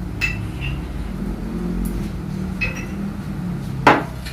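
A few light clinks of tableware over a steady low hum, with one sharper knock near the end.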